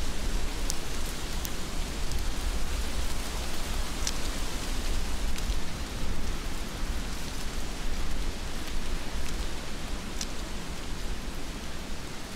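Heavy rain falling steadily, with a low rumble underneath and a few sharp ticks of single drops close by.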